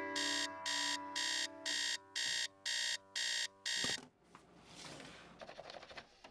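Electronic alarm beeping in quick, even pulses, about two a second, over a fading piano chord; the beeping and the chord cut off together with a thump about four seconds in, followed by a soft rustle and a few light clicks.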